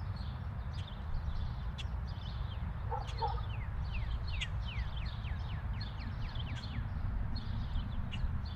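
Outdoor ambience: birds chirping over and over in quick falling notes above a low steady rumble, with a dog barking twice about three seconds in.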